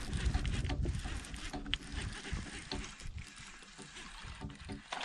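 Water sloshing against a fishing kayak's hull, with small knocks and clicks from gear and handling.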